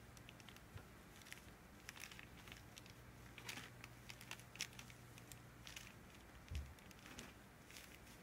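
Faint, scattered rustling and scratching of kittens' paws and claws scrabbling on a cloth towel as two four-week-old kittens wrestle, with a soft thump about six and a half seconds in. A faint low hum runs underneath.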